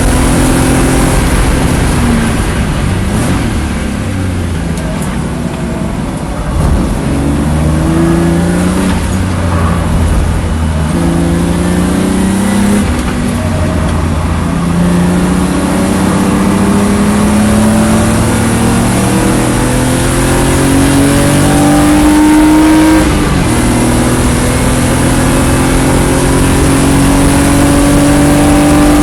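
Race car engine at full throttle on a lap: the revs climb steadily and drop sharply at each gear change, four times.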